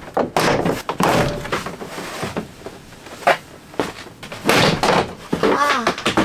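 Plastic interior trim panel of a Hyundai Starex sliding door being pried and pulled off, its retaining clips letting go: a series of knocks and scrapes with a sharp snap about three seconds in.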